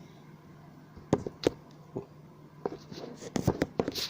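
Scattered keystrokes on a mechanical keyboard with Kailh Red linear switches: two separate presses about a second in, then a quicker run of presses near the end.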